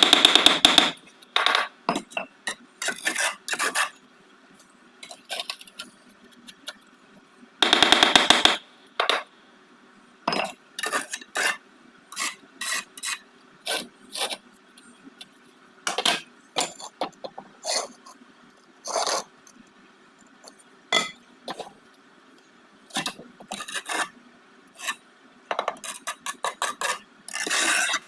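Bricklaying work: a steel trowel scraping mortar across brick in many short, separate strokes, with two longer, louder rasping passes, one at the start and one about eight seconds in.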